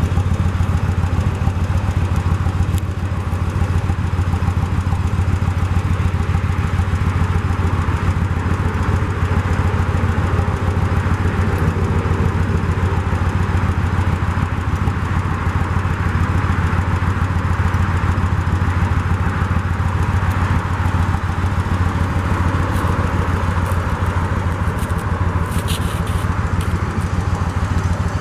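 2004 Yamaha V-Star 1100's air-cooled V-twin idling steadily through its stock exhaust pipes.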